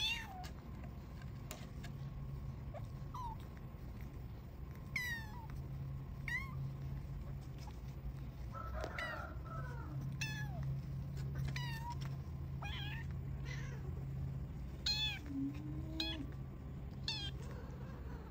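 Young kitten mewing again and again, in short high-pitched cries that fall in pitch, while its eyes are being wiped with a tissue.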